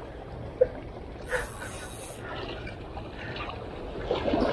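Small waves lapping and washing against shoreline rocks, with a brief rush of splashing water about a second and a half in.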